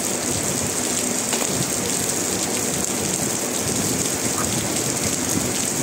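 Steady rain falling on wet brick paving.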